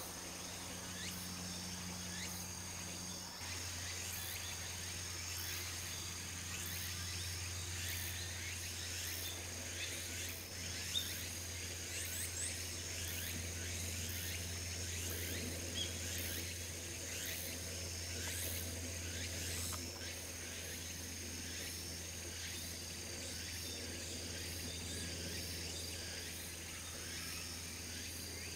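Insects chirping and trilling: steady high-pitched trills with rapid repeated chirps, over a low steady hum. A single brief click about eleven seconds in.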